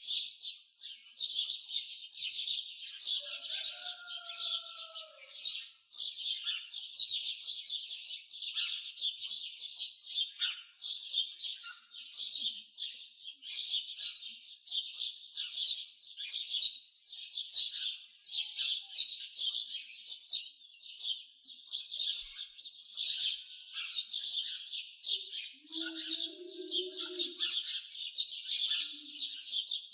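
Dense chorus of small birds chirping rapidly and without pause. A few short, lower calls stand out over it, about four seconds in and again near the end.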